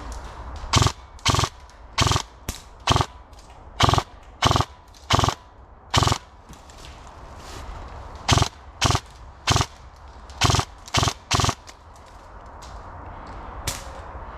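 Airsoft gun firing about fifteen short, sharp shots, roughly one every half second to second, in two runs broken by a pause of about two seconds, then a single sharp click near the end.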